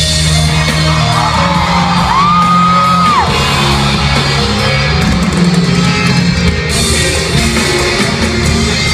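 Live concert music played loud through a stadium sound system, with fans yelling and cheering over it. About two seconds in, a high cry rises, holds for about a second and drops away.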